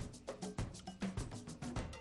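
Background music with a quick, even percussive beat.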